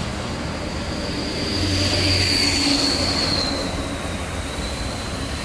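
Tronton dump truck rolling by with a low rumble and a thin, high squeal that slides down in pitch a little about three seconds in.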